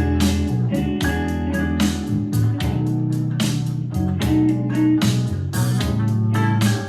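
A song played back on a portable Bluetooth speaker for a sound test: a heavy bass line, guitar and a steady drum beat.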